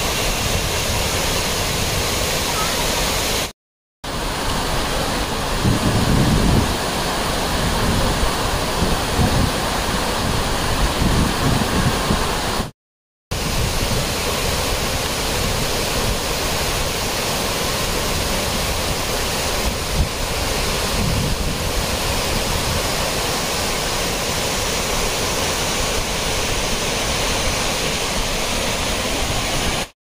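Waterfall in full monsoon flow pouring down a steep rock face: a steady, loud rush of falling water. It drops out twice for a moment, about 4 and 13 seconds in, and low rumbles come and go between about 6 and 12 seconds.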